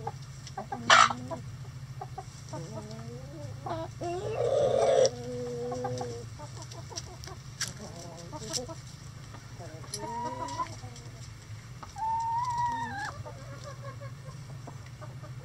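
Chickens clucking and calling, with a rooster crowing twice, first about four seconds in and again near the end. A short, sharp squawk about a second in is the loudest moment, over a steady low hum.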